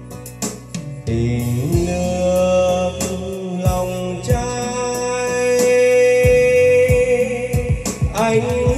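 A song playing back through BMB 2000C karaoke loudspeakers and a subwoofer on test: a long held note over guitar-like accompaniment, with bass drum hits every second or two.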